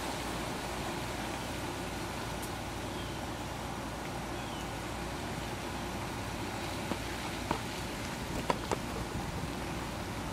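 Steady outdoor background noise, a low rumble with a hiss over it, broken by a few sharp light clicks between about seven and nine seconds in.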